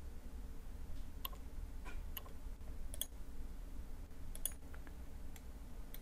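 Computer mouse buttons clicking several times, singly and in quick pairs, over a faint low hum.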